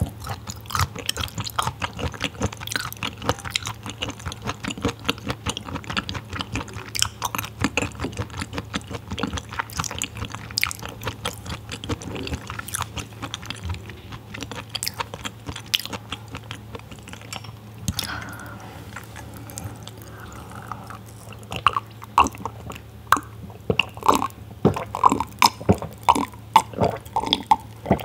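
Close-miked chewing of raw filefish sashimi, with dense wet clicking mouth sounds. In the last several seconds come louder gulps, about two a second, as sparkling water is drunk.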